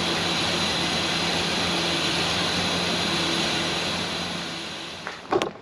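1996 Ford Ranger's 3.0 L V6 idling steadily with a misfire. The sound fades out about five seconds in, followed by a few sharp clicks.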